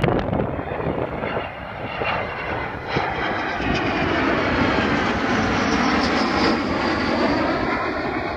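Jet noise from an Avro Vulcan delta-wing bomber and a smaller escort jet flying past: a loud, steady rush whose pitch slowly falls as they pass.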